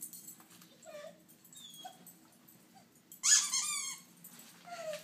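Dog whining in short, soft whimpers, with one loud, high cry that falls in pitch about three seconds in.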